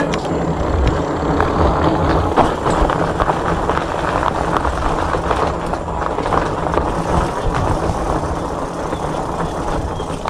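E-bike rolling over a rough dirt and gravel track: tyres crunching and the bike rattling with many small knocks over bumps, over a steady low rumble of wind on the microphone.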